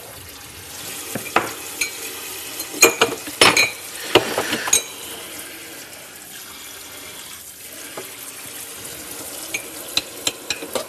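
Dishes and food containers clinking and clattering at a kitchen sink over running water, with a run of sharp knocks from about a second in to about five seconds in and a few more near the end.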